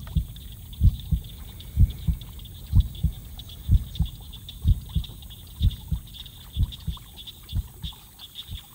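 Heartbeat sound effect: low thumps about once a second, spaced a little wider toward the end, building suspense.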